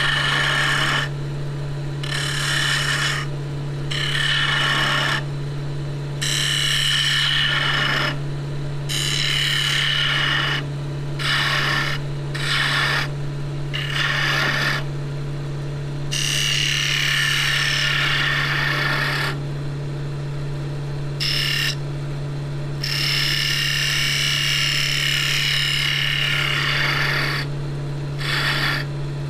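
Wood lathe running with a steady hum while a turning tool cuts the spinning ash blank in repeated passes, a rasping scrape that starts and stops every second or two.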